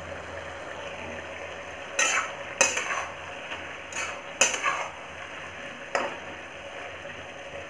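A slotted metal spatula stirring and scraping in a metal kadai, clanking against the pan several times from about two seconds in, over a steady sizzle of a dry cauliflower, chickpea and potato curry frying uncovered on high heat.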